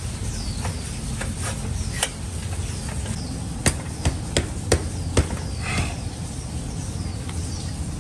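Sharp metallic knocks and clacks from work on an old bicycle: a few light clicks, then five sharp knocks in quick succession near the middle. A bird repeats a short falling call throughout.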